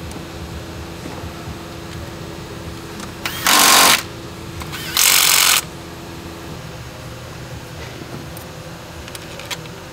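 Two short bursts of a handheld power tool, each about half a second long and about a second apart, spinning fasteners in during reassembly of the engine bay.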